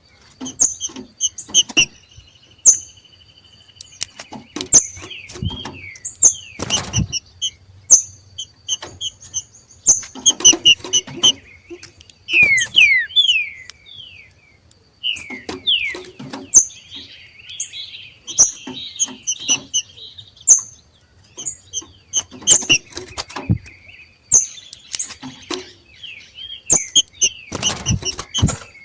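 Two green-winged saltators giving their 'macheado' calls: clusters of short, sharp chips and quick down-sweeping notes with brief pauses, broken by sharp clicks. A faint steady high tone runs behind the birds.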